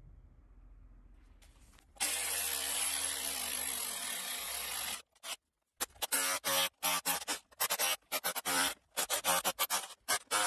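Bosch UniversalHammer 18V cordless SDS-plus rotary hammer boring into sandy ground with a long masonry bit: it runs steadily for about three seconds starting two seconds in. From about six seconds it comes as a quick string of short chopped bursts, the drilling played back sped up.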